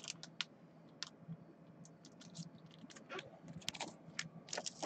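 Faint, irregular light clicks and taps, a few close together near the end, as a plastic-cased trading card and its holder are handled at a desk.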